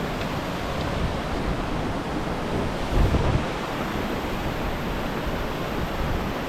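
Steady rushing of a river in flood, running fast over rocks, with a brief low buffet on the microphone about three seconds in.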